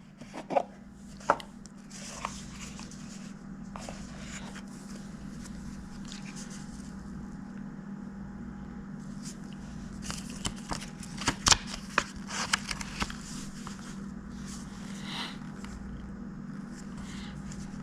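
Small light-meter box being opened and its packaging handled by hand: scattered taps, scrapes and clicks, busiest in the second half with one sharp click near the middle, over a steady low hum.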